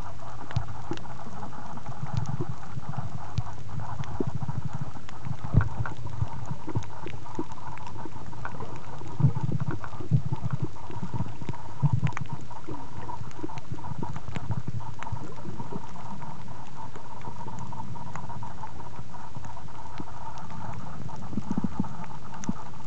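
Muffled underwater sound picked up by a compact camera sealed in a soft plastic waterproof pouch: irregular low knocks and rumbles from handling and water movement, scattered sharp clicks, and a faint steady hum.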